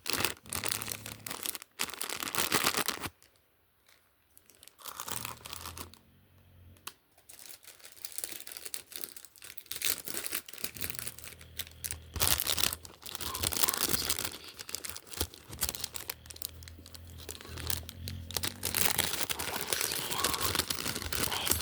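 Packaging being torn and crinkled open by hand, in irregular rustling bursts with a couple of brief pauses.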